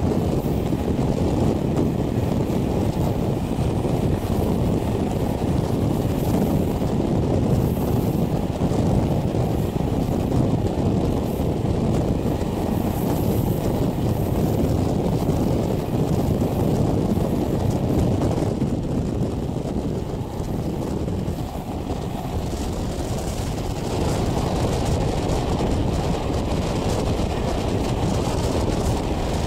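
Steady rush of wind on the microphone at the open window of a moving passenger train, over the low rumble of the coaches running on the track. It eases a little for a few seconds about two-thirds of the way through.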